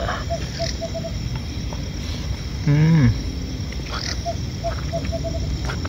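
Night forest chorus: a frog calling in short quick runs of repeated notes, over a steady high insect trill. About three seconds in, a brief low hum-like sound is the loudest thing.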